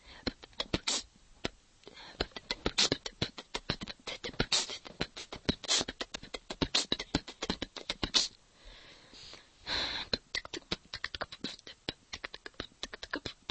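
A girl beatboxing: a fast run of mouth-made clicks and percussive beats, broken by a short lull and a longer hissing sound about two-thirds of the way through.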